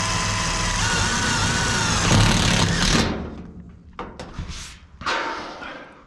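Cordless impact driver hammering a screw into a steel sheet-metal roof tile for about three seconds, then stopping. Quieter rustling and handling noise follows.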